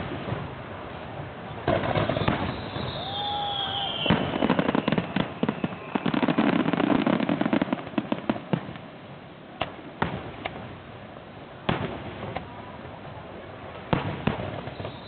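Fireworks going off: a series of sharp bangs, with a rapid run of crackling reports in the middle and a falling whistle early on.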